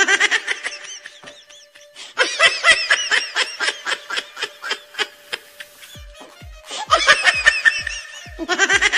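Several bursts of rapid, high-pitched laughter over background music: a comic laugh sound effect. A low, even beat comes in about six seconds in.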